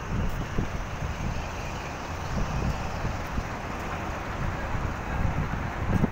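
Steady rush of traffic on a busy multi-lane city highway, with some wind rumbling on the microphone.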